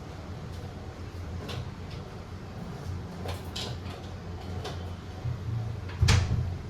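Kitchen handling sounds: light clicks and knocks of cupboards and utensils over a steady low hum, with one louder knock about six seconds in.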